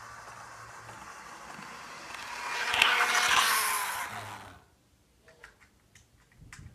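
Life-Like Proto 1000 HO-scale Budd RDC-1 model rail car running past on its track, its motor and wheels whirring with a thin squeak. The sound swells to its loudest about three seconds in, then falls away quickly, leaving a few faint clicks.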